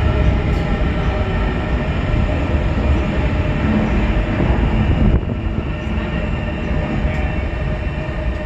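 Metro train running along an elevated bridge track: a steady rumble with a motor whine over it, which drops suddenly in level about five seconds in as the train pulls away.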